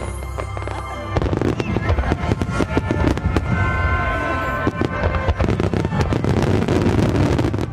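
A dense volley of aerial firework shells bursting and crackling, starting about a second in, over the song that accompanies the display.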